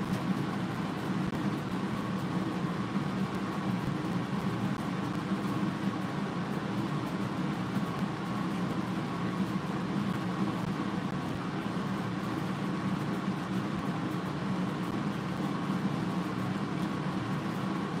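Steady machine hum, even throughout, with a low drone and a fainter higher tone over it.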